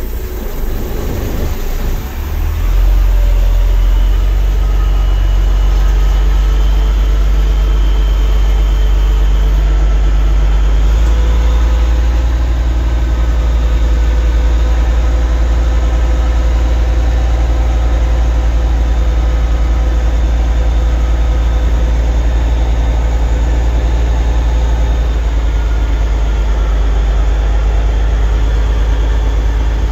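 Kenworth semi truck's diesel engine running steadily under light load, heard from inside the cab as the truck pulls slowly along. It gets louder about two and a half seconds in, and its low hum grows stronger again around eleven seconds.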